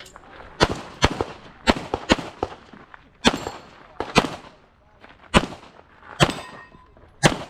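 Handgun shots fired during an IPSC course of fire: about a dozen sharp reports, mostly in quick pairs, with short gaps between the pairs.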